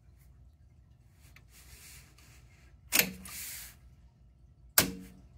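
Two sharp mechanical clunks from a Technics 677 cassette deck's transport controls as Record and Pause are engaged, about two seconds apart with the second near the end. Each has a brief ringing, and a short hiss follows the first.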